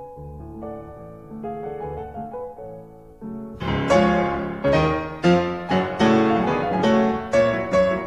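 Background piano music, soft at first, then much louder with fuller repeated chords about three and a half seconds in.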